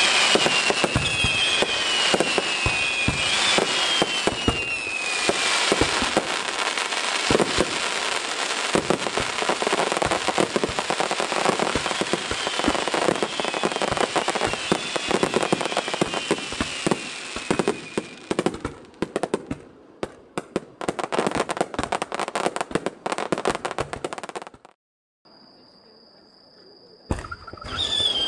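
Fireworks barrage: a dense, continuous stream of crackling and popping, with several whistling shells whose pitch falls. After about eighteen seconds it thins to scattered pops. A short gap follows, then a steady high tone and a single bang near the end.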